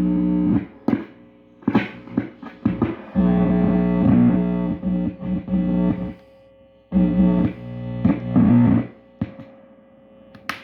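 Loud buzzing hum from a Fender Blues Junior amp as a live guitar cable is handled and plugged into the guitar's jack, cutting in and out in blocks of a few seconds with sharp pops and crackles in between.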